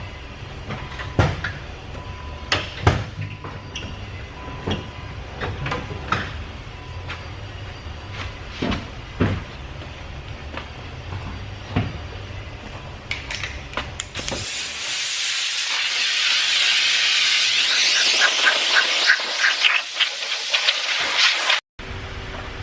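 Scattered sharp clicks and knocks, then about fourteen seconds in a compressed-air blow gun hisses loudly and steadily for about seven seconds, blowing debris from around the valve cover gasket before it is fitted, and cuts off abruptly.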